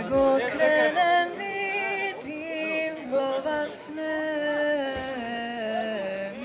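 Slow music with a single sung melody line: long held notes that glide from one pitch to the next, with one short hiss about four seconds in.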